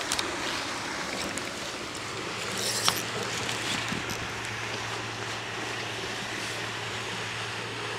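Steady outdoor background noise with a few light knocks and rustles as a landing net holding a trout is lifted onto the bank. A low steady hum comes in about four seconds in.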